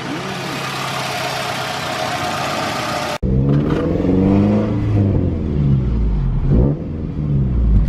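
Scion tC's four-cylinder engine breathing through a newly fitted short ram intake: at first a steady, hissy running sound. After a sudden cut about three seconds in, the engine revs up and down several times, its pitch rising and falling.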